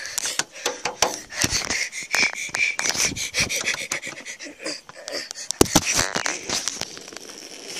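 Rubbing and knocking of a handheld phone as it is carried at a run, with hard, panting breath. A thin high whine holds for about a second and a half near the start.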